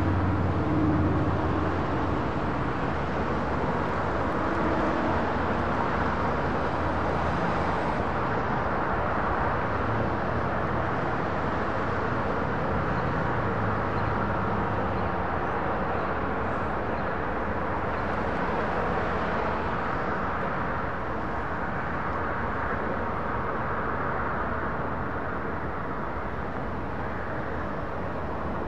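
Steady vehicle rumble, slowly growing fainter.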